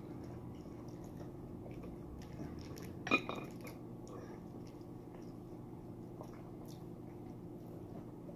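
Faint eating sounds: chewing sushi and soft clicks of plastic takeout sushi trays being handled, with one sharper click about three seconds in. A steady low hum runs underneath.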